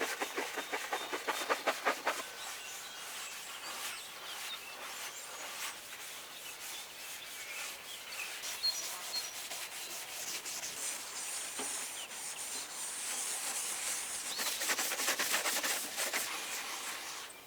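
Rapid back-and-forth scrubbing of a van's roof, cleaning it before solar panels are stuck on.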